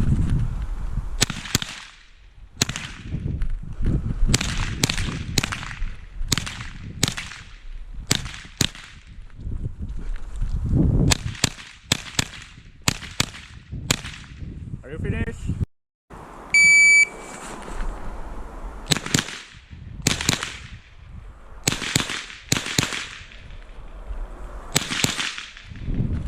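Rapid strings of .22 rimfire rifle shots, each a sharp crack with a short echo, some in quick pairs. About halfway through, after a short break, a shot timer gives one electronic beep and the shooting starts again.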